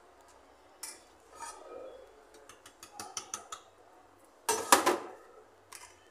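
Kitchen utensils and containers clinking and clattering during food preparation: scattered light clicks and clinks, then a louder burst of rattling clatter about four and a half seconds in, and a couple of small knocks near the end.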